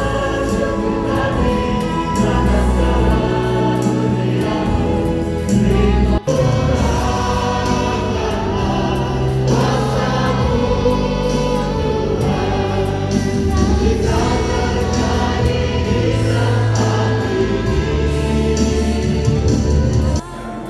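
Choir singing a Christian worship song with instrumental backing and sustained bass notes; the sound drops out for an instant about six seconds in.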